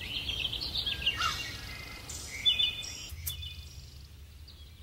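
Small birds chirping, a scattered series of short high calls, over faint outdoor background noise.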